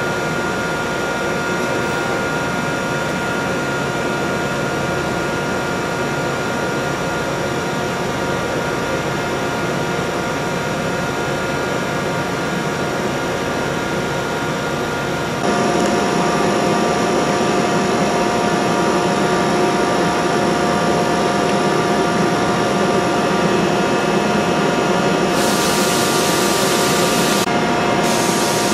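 Toshiba NX-76B CNC horizontal machining centers running under power: a steady mechanical hum with several constant whines, which gets louder and changes pitch about halfway through. Near the end a loud hissing rush comes in for about two seconds, stops briefly, then starts again.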